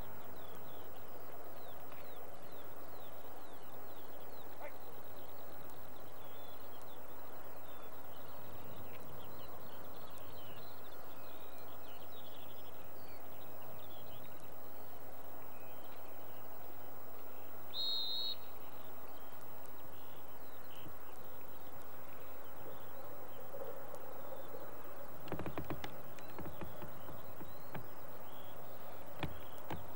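Small birds chirping continuously over an open field, with a short high whistle about two-thirds of the way through and a few sharp knocks near the end.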